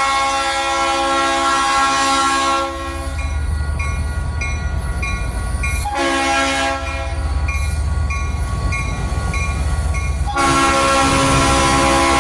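Multi-chime locomotive air horn, the horn of KCS GP32ECO 2038, sounding a chord in a long blast, a short one about six seconds in, and another long one near the end. Between the blasts a bell rings about twice a second over the low rumble of the diesel locomotives.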